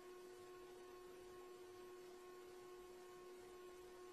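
Near silence: a faint, steady electrical hum with its overtones over a low hiss.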